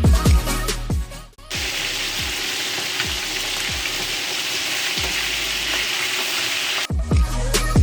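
Marinated chicken pieces frying in hot oil in a pan on high heat: a steady sizzle that starts about a second and a half in and stops shortly before the end, between stretches of electronic music with a heavy bass beat.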